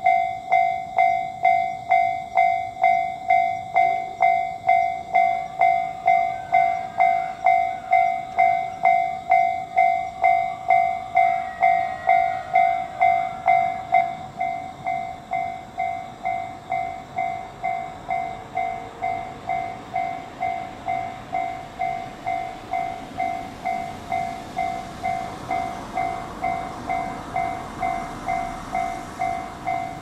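Japanese railway level-crossing warning bell ringing, an electronic two-tone ding at about two strikes a second; it turns noticeably quieter about halfway through. Near the end the rumble of an approaching freight train begins to rise underneath it.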